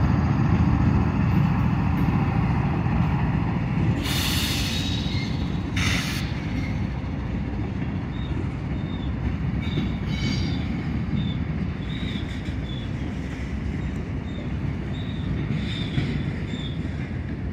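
Freight train rolling past: the low rumble of a GE AC45CCTE diesel locomotive running mid-train, loudest at first and slowly fading as it moves away, followed by covered hopper cars rolling by. Two brief harsh high bursts come about four and six seconds in, and short high-pitched wheel squeals chirp repeatedly through the second half.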